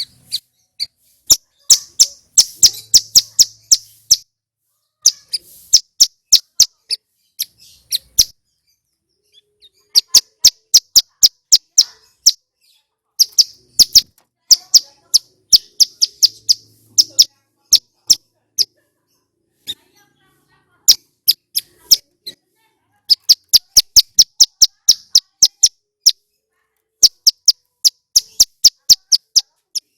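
Male ciblek gunung (a prinia) singing: loud, high, sharp chirps repeated rapidly, about four or five a second, in runs of a few seconds with short breaks between.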